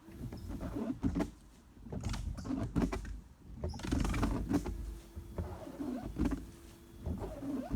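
Car windshield wipers sweeping back and forth across the glass, the wiper motor humming under a run of strokes about every couple of seconds. Each stroke ticks and judders as it goes: the new blades are still chattering and skipping.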